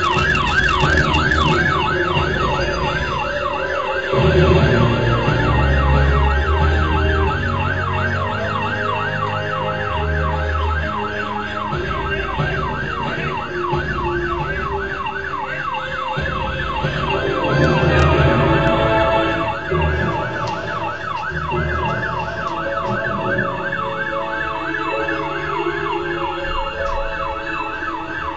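Emergency vehicle siren on a fast yelp, its pitch sweeping up and down several times a second without a break, over a low rumble.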